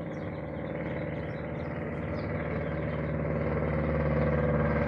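Light propeller plane's piston engine droning steadily overhead, growing gradually louder as it approaches.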